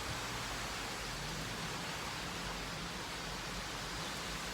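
Rain falling steadily, an even hiss with no single drops or other events standing out.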